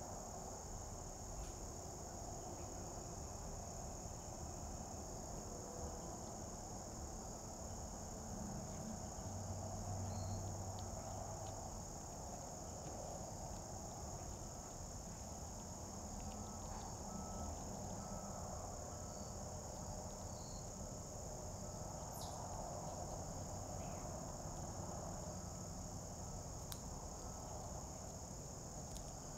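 Steady high-pitched chorus of insects, a continuous outdoor drone over a faint low background rumble.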